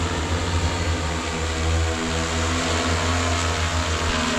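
Multirotor agricultural spray drone's propellers running steadily in flight: a loud, even hum of several held tones under a rushing hiss.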